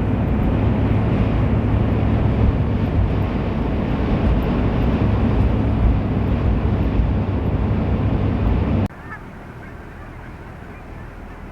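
Steady loud rumble of road and wind noise from a moving car, cutting off abruptly about nine seconds in to a quieter outdoor background with faint honking of geese.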